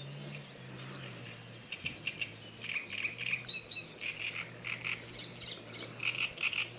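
Birds singing, a run of short repeated chirping phrases, over a steady low hum.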